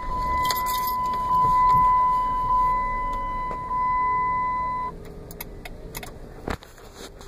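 A steady electronic beep from the Dodge Grand Caravan's cabin, one unbroken high tone that cuts off about five seconds in, with keys jangling and clicking. After it stops a fainter, lower steady hum remains.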